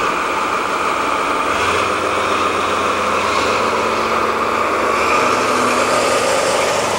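JNR Class DE10 diesel-hydraulic locomotive's V12 diesel engine idling steadily, heard close alongside the engine hood. A deeper hum joins in about a second and a half in.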